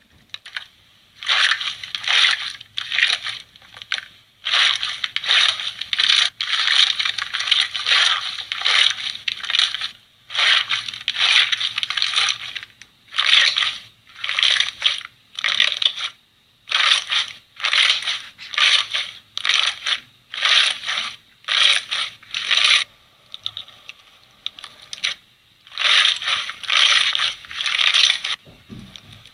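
Slime being squeezed and pressed in a slime ASMR clip, a run of short crackling, popping bursts about once a second, with a brief lull a little before the end.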